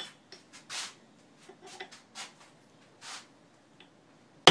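Soft handling and rustling noises as a bolt, used as a punch, is set against a cast-iron variator sheave held in a vise, then a sharp hammer blow on the bolt right at the end. The blows are driving the threaded outer sheave round to unscrew it from its shaft.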